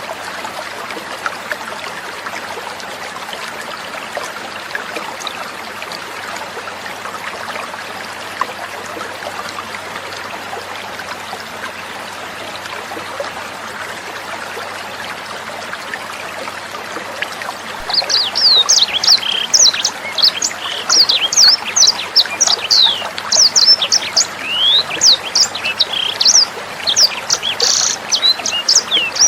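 Water trickling steadily; about 18 s in, a sanger bird breaks into song over it, a rapid run of high, sharp chirps and sweeping whistled notes.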